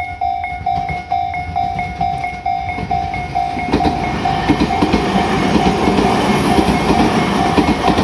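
Japanese level-crossing alarm ringing steadily at about two strokes a second. From about four seconds in, a Tobu 50000-series electric train passes close by, its wheels rumbling and clattering on the track over the bell.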